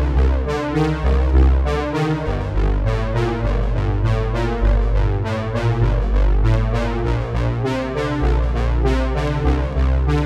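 Background music: electronic track with synthesizer and electric piano over a steady bass.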